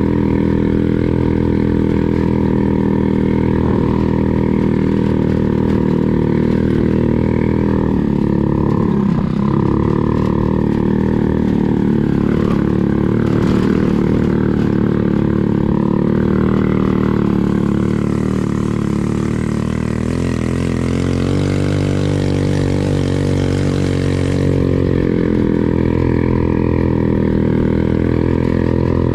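Yerfdog buggy's 150cc GY6 single-cylinder four-stroke engine with CVT running under load while driving on a dirt trail, holding a fairly steady pitch. The revs dip and pick up again about eight to ten seconds in. A hiss is added for several seconds past the middle.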